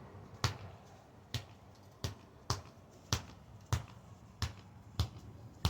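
A basketball being bounced on a hard floor, about nine thuds at an uneven, roughly half-second to one-second pace.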